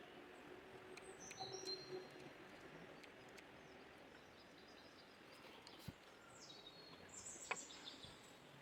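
Faint bird calls: a few short, high whistled notes, some gliding in pitch, about a second in and again near the end, with a couple of soft clicks.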